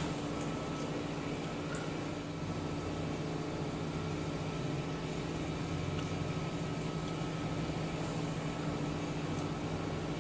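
Steady low mechanical hum, such as a fan or appliance running in the room, with a few faint light clicks.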